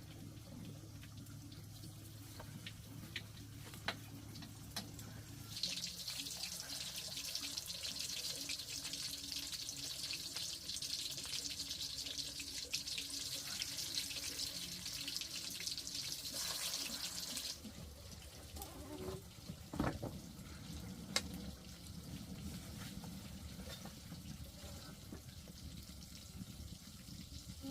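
Water running steadily, as from a tap or pipe, starting about five seconds in and stopping about twelve seconds later. Light clicks and knocks can be heard around it.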